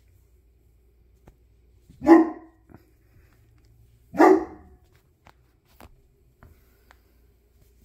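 A dog barking twice, one short bark about two seconds in and another about two seconds later, with faint ticks in between.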